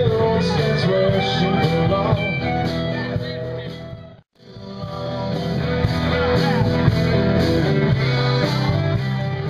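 Guitar-led background music. It fades out to a moment of silence about four seconds in, then fades back up.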